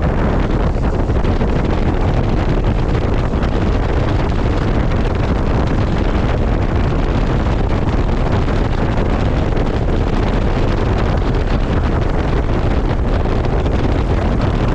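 Loud, steady rush of slipstream wind buffeting the camera microphone outside a jump aircraft in flight, mixed with the aircraft's engine noise.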